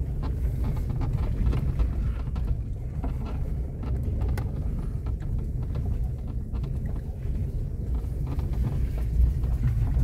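Low rumble of a car driving slowly over a rutted, muddy dirt road, heard from inside the cabin, with scattered small knocks and rattles.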